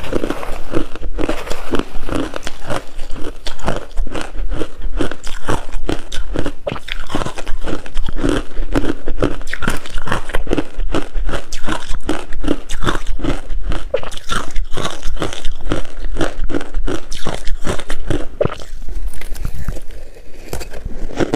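A person biting and chewing coarse-grained crunchy ice: a rapid, continuous run of crisp crunches, about two to three a second, with a brief lull near the end.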